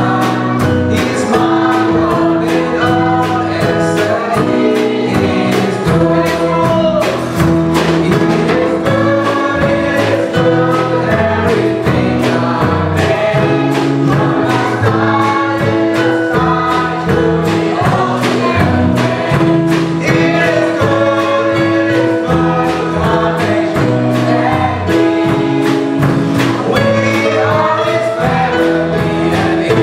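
Children's choir singing a gospel song in unison over instrumental accompaniment, with sustained keyboard-like notes and a steady beat.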